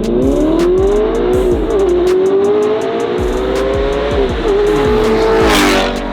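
Sports car engines at full throttle in a race, climbing steadily in pitch with drops at the gear shifts about one and a half and four seconds in, then a short loud rush of noise near the end as the cars go by.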